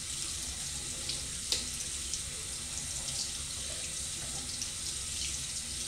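Water running steadily, with a few faint clicks or splashes.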